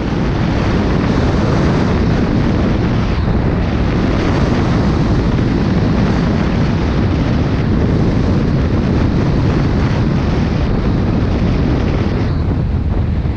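Loud, steady wind rush over the microphone of a camera mounted outside a Cessna 172, with the aircraft's engine and propeller mixed in, on short final and landing in a gusty crosswind.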